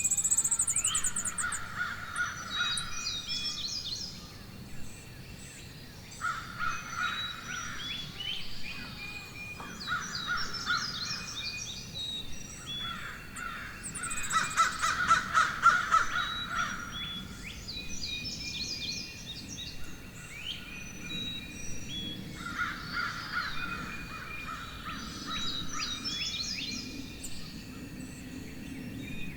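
Several wild birds chirping and singing together, with bouts of lower-pitched repeated calls that come and go every few seconds; the loudest bout is about halfway through.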